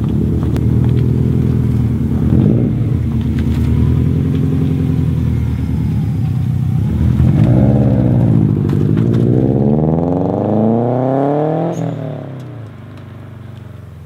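Subaru Impreza GC8's turbocharged 2-litre boxer engine through a 3-inch custom exhaust with a metal cat, revving with a lumpy idle and short blips, then accelerating hard with the pitch climbing steadily. Near the end the note falls in pitch and fades as the car pulls away.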